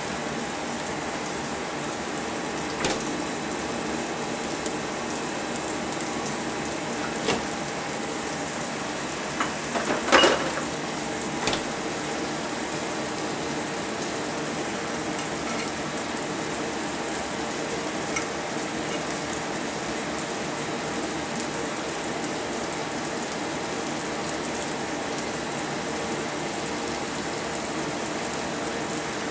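Steady hiss throughout, with a few light clicks and crackles from crisp cooked bacon strips being handled and laid on toast, the loudest cluster about ten seconds in.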